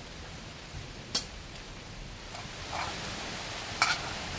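Steady hiss of rain falling, with two sharp clicks, one about a second in and one near the end.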